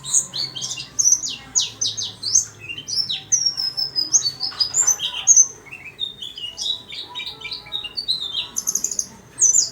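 White-eye (pleci) singing: a fast, nearly unbroken run of high chirps and warbled notes, many of them quick downward sweeps.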